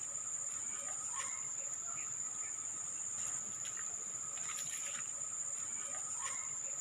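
Insects droning steadily on one high pitch, with a few short chirps over it.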